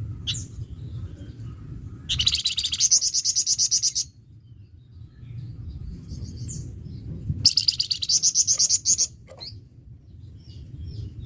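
Flamboyan songbird singing a harsh, fast trill twice, each lasting about two seconds of rapidly repeated notes at roughly ten a second, with short chirps between, over a low background rumble.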